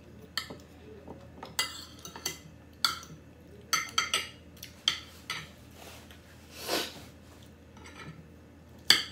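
Metal spoon and fork clinking and scraping on a plate while eating: a dozen or so separate sharp clinks, with the loudest one near the end.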